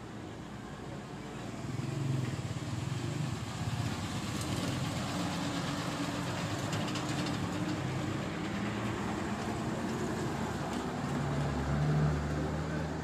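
Bus engine running at low speed as the bus creeps past close by, its low hum swelling about two seconds in and loudest near the end, over general street noise.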